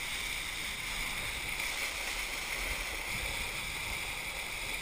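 Steady rush of wind on a kiteboarder's action-camera microphone, mixed with water hissing past the moving kiteboard, with a constant low rumble and no distinct events.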